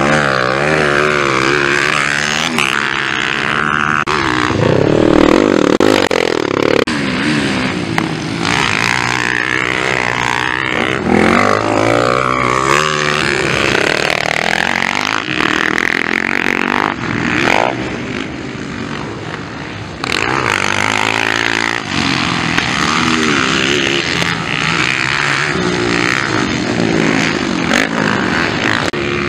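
Small four-stroke dirt bike engines revving hard and easing off again and again as the bikes race past and take jumps, the pitch rising and falling throughout.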